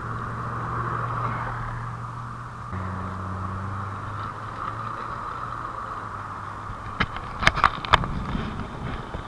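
Car running, heard from inside the cabin: a steady low engine hum over road hiss that shifts in pitch about a third of the way in. A quick cluster of sharp clicks and knocks comes near the end.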